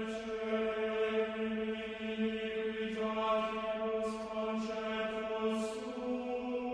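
A steady, chant-like drone held on one low note, with short hissing sounds over it. About halfway through the tone changes colour, and near the end it steps up in pitch.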